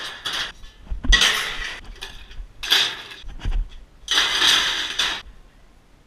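Scrap metal thrown into a steel roll-off dumpster, crashing and clattering four times at uneven intervals.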